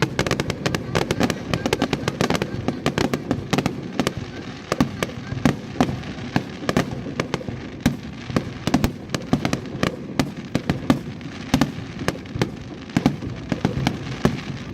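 Aerial fireworks display going off in a dense, continuous barrage: rapid overlapping bangs and crackling pops, many per second, with louder booms scattered throughout.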